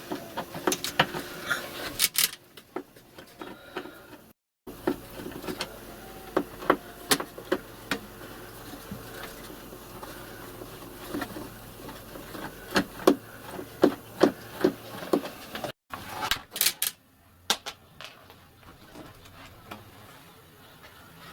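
Irregular clicks, taps and knocks of hands working on a plastic caravan roof light, its parts being handled and its screws worked with a screwdriver.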